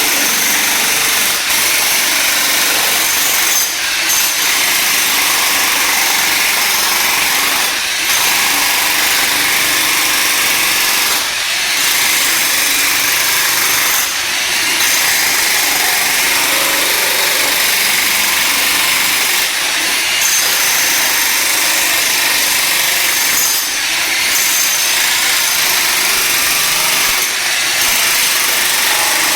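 Electric demolition jackhammer running continuously as it breaks up glued-down flooring and tile, with brief pauses every few seconds.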